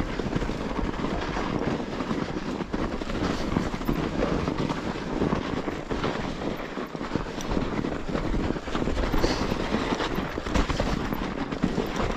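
Mountain bike riding down a snowy trail: continuous tyre noise with a busy rattle of small clicks and knocks from the bike.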